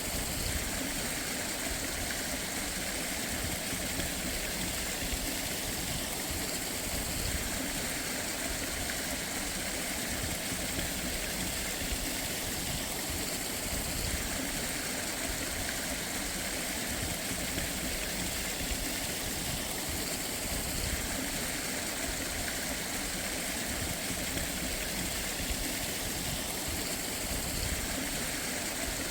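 Steady rush of running mountain water, an even hiss with no breaks or changes.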